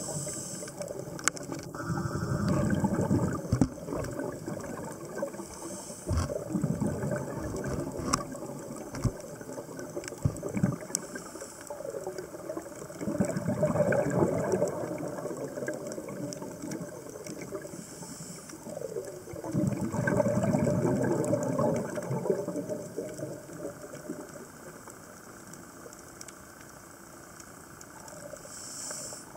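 Scuba diver breathing through a regulator underwater: a short hiss on each inhalation, then a long rush of exhaled bubbles, about three breaths in all. Scattered sharp clicks and crackles sound through it.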